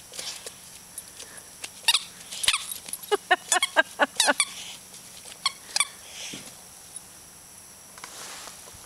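Rubber squeaky toy squeaking as a dog bites and shoves it: scattered single squeaks, with a quick run of squeaks around the middle.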